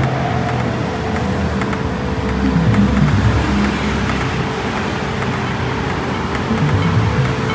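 Steady city road traffic, cars and motorbikes passing, with music in the background.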